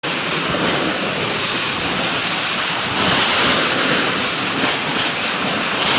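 Strong storm wind blowing against the microphone: a loud, steady rush of noise that grows a little louder about halfway through.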